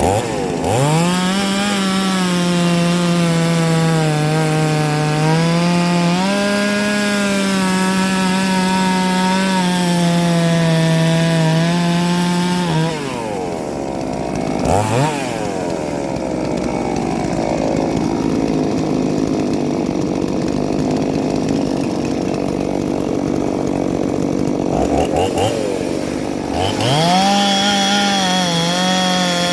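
Ported two-stroke chainsaw at full throttle cutting a log, its pitch dipping and recovering under load. About halfway through it drops off to idle, with a couple of short throttle blips. Near the end it revs back up to cut again.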